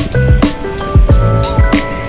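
Background music with a steady beat: kick drum, bass and held synth notes.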